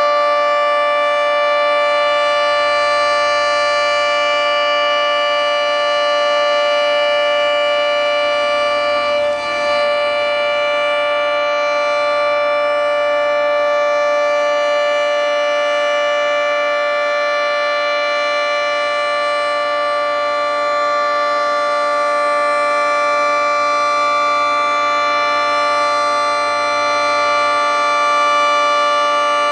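Federal Signal 3T22 three-tone outdoor warning siren sounding a loud, steady chord at full speed, its pitch held level. It is a routine monthly test, not a warning.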